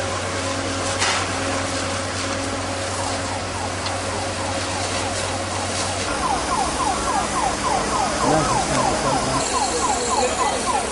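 Emergency vehicle siren on a rapid yelp, about four falling wails a second. It is faint at first and much louder from about six seconds in, over a steady background din.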